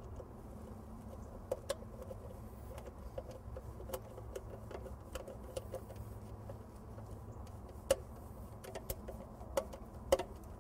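Hand screwdriver driving a sheet-metal screw to mount a potential relay in an air conditioner's control box: faint, irregular small clicks and ticks, with a few sharper clicks, over a steady low hum.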